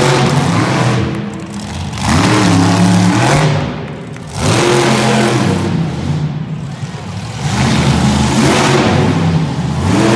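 Toxic monster truck's engine revving hard in repeated surges a couple of seconds apart, its pitch climbing with each as the truck drives and turns on the dirt.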